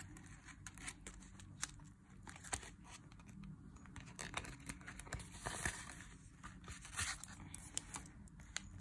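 Faint, scattered rustles and clicks of paper banknotes and clear plastic cash envelopes being handled in a binder.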